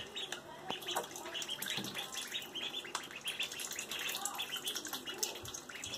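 Ducklings peeping rapidly and over and over, with light splashing and dabbling as they swim and snap up minnows in a bathtub's shallow water.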